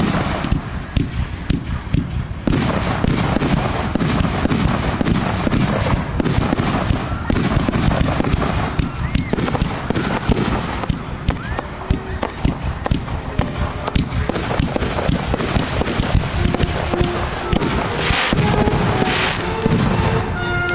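Aerial fireworks display: shells bursting overhead in quick succession, many sharp reports packed close together with crackling between them, loud and continuous.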